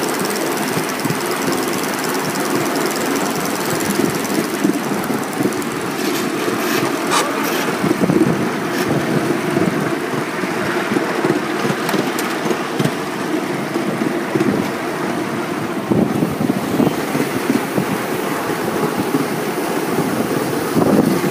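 Ride-on miniature live-steam locomotive running along its track: a steady rapid chuffing from the exhaust mixed with the clatter and rattle of the train on the rails.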